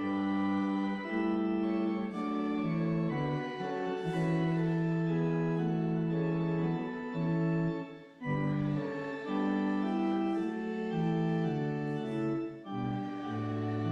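An organ playing slow, held chords, with a brief pause between phrases about eight seconds in.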